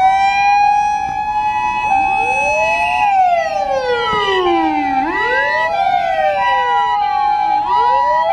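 Several ambulance sirens sounding at once, starting suddenly: a two-tone hi-lo siren switching back and forth every half second or so, over wailing sirens that slowly fall and rise in pitch.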